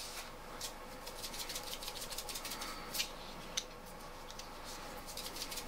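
Small hand-held garlic grinder being twisted over food: a fast run of dry clicks. The clicks thin out past the middle and pick up again near the end.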